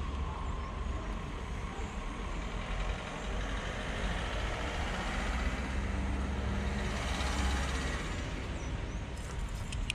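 SNCF TER regional train running away along the station track: a steady low rumble, with a few sharp clicks near the end.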